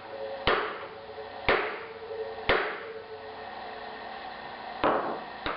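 Hammer striking a socket that drives a new cartridge bearing into a bicycle hub shell, each tap followed by a short metallic ring. Three taps about a second apart, a pause, then two more near the end.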